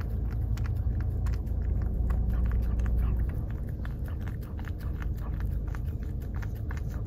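Mini goldendoodle puppy licking whipped cream out of a small paper cup: a quick, irregular run of wet licks and lapping clicks. A low, steady rumble runs underneath, heavier in the first half.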